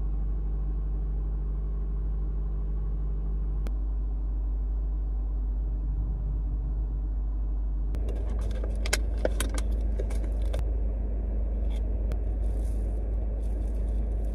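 Steady low rumble of a car heard from inside the cabin. From about eight seconds in, a louder hiss and scattered clicks join it.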